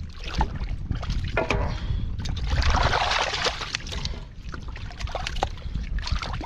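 Hands splashing and groping in shallow muddy water while catfish thrash, in short wet slaps and splashes, with a longer, louder burst of splashing about halfway through.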